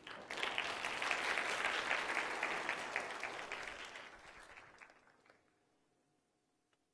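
Audience applauding. The clapping starts just after the beginning and dies away about five seconds in.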